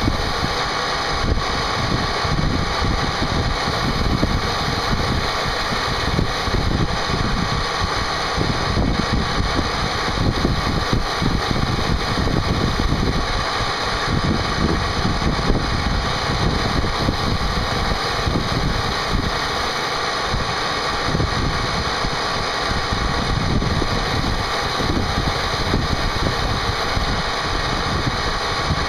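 CNC machine running a part program: the cutting spindle keeps up a steady whine over a rough, fluctuating low rumble as it machines the part.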